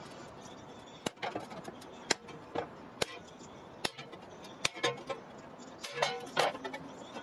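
Hammer blows on a cold chisel cutting sheet metal clamped in a vise: sharp metallic strikes at an uneven pace, roughly one to two a second, some in quick pairs.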